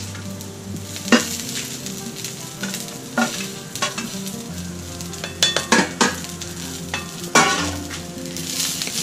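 Moringa flowers and ground coconut sizzling in a hot iron kadai while a wooden spatula scrapes the mixture off a steel plate into the pan and stirs it. There are several sharp knocks of the spatula against the plate and pan, with a quick cluster about two-thirds of the way through.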